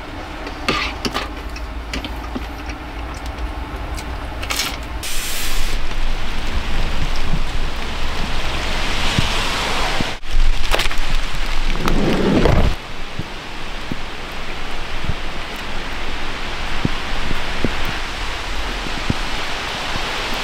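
Heavy rain pouring down, a steady hiss of rain on the ground and on parked vehicles. About twelve seconds in, a louder low rumble rises over it for under a second. A few light clicks sound in the first seconds.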